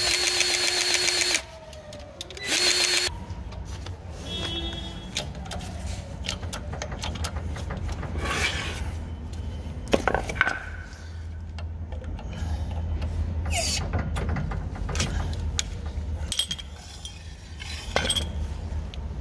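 Motor-driven grease gun running, pumping grease through its hose into a load-wheel grease fitting. It whines steadily for about a second and a half, stops, then gives a second short burst. After that come scattered light clicks and knocks over a low steady hum.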